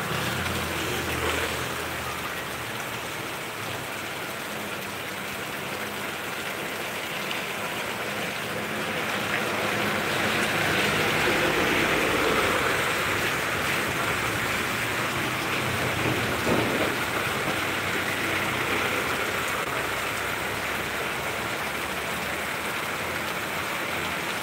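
Steady rain falling on a wet paved street and its puddles, an even hiss that swells louder partway through.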